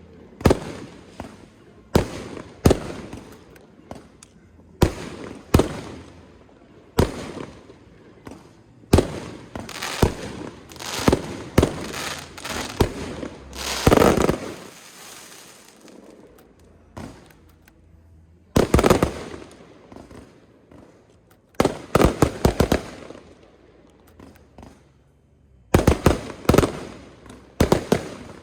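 Fireworks going off: aerial shells bursting one after another at uneven intervals, each bang trailing off briefly. There are quick runs of several bangs in a row, and about halfway through a longer, louder burst.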